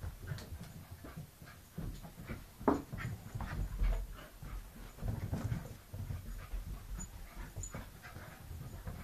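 A wire fox terrier and a puppy playing, with quick panting and short, irregular bursts of play noise. One louder, sharp sound comes nearly three seconds in.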